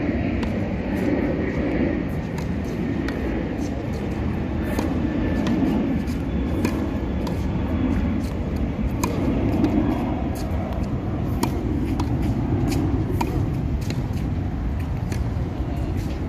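Tennis rally on a hard court: racquet strikes and ball bounces as repeated short, sharp pops, over a steady low rumble that is the loudest sound.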